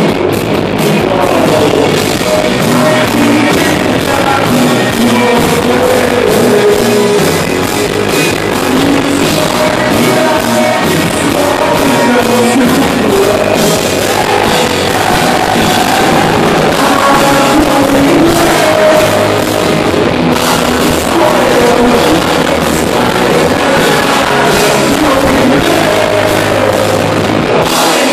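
Live rock band playing loudly: electric guitars, bass guitar and drum kit under a sung lead vocal, heard from within the audience.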